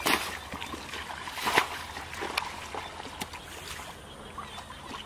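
Footsteps splashing and sloshing through shallow muddy paddy water, in irregular steps, the loudest splash about a second and a half in.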